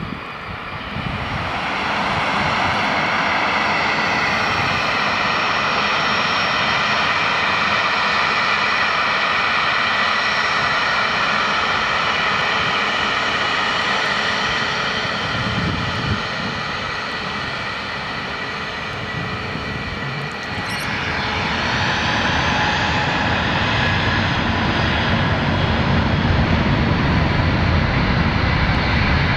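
Jet airliner engines at taxi power, a steady whine made of several high tones. About twenty seconds in the sound changes to a different set of tones, and a low rumble builds as a Boeing 757's Rolls-Royce RB211 turbofans come closer.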